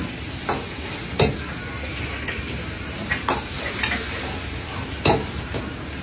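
Beaten egg sizzling in a hot steel wok while a metal ladle stirs it, scraping and knocking against the wok several times, loudest about a second in and again about five seconds in.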